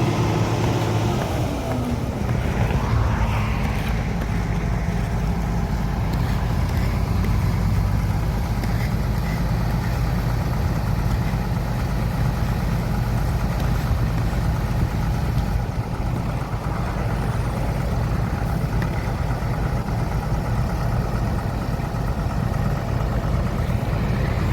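Heavy diesel road-paving machinery running steadily with a deep engine drone. The engine note drops about two seconds in.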